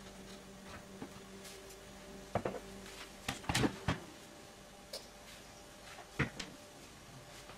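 A few light knocks and clicks of kitchen things being handled, loudest about three and a half seconds in, over a faint steady hum.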